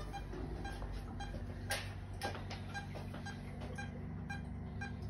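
Short, evenly spaced electronic beeps, about two to three a second, typical of a veterinary patient monitor, over a steady low machine hum. A couple of brief knocks come about two seconds in.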